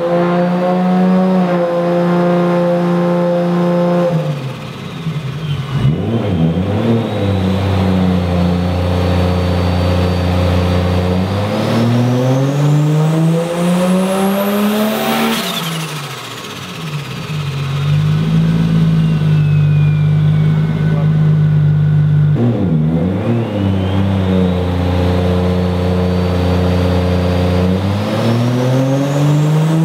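Turbocharged 1.5JZ inline-six (2JZ block, 1JZ head) in a Nissan 240SX running under load on a chassis dyno. It holds steady engine speeds, climbs, and drops off three times. A high whine rises slowly to a peak partway through and then falls away.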